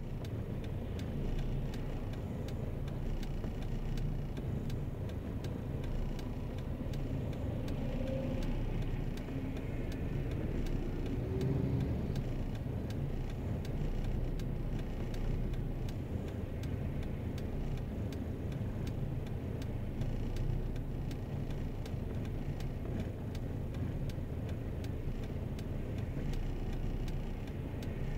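Car idling at a standstill, heard from inside the cabin: a steady low engine hum, with other traffic passing outside and swelling briefly about ten seconds in. A faint regular ticking runs underneath.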